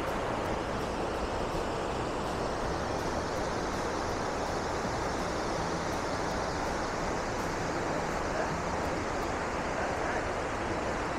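Fast mountain river in full spate rushing over boulders and rapids: a steady, unbroken rush of white water.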